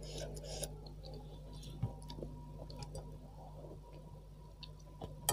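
Faint eating sounds: soft wet mouth clicks and squishes from chewing chewy tapioca balls (cilok), with a few small ticks, over a steady faint hum.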